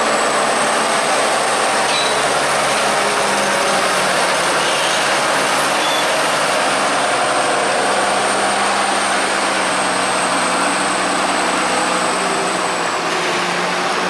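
Case IH Puma 240 CVX tractor running under load as it pushes maize up a silage clamp with a buckrake, with a second tractor, a Case IH MX135, running alongside. A thin high whine sits over the engine noise and fades near the end.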